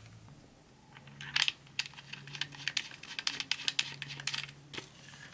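Hard plastic parts of a motion-activated sprinkler clicking and knocking as the motion sensor is fitted onto its small mounting bracket: a run of light, irregular clicks.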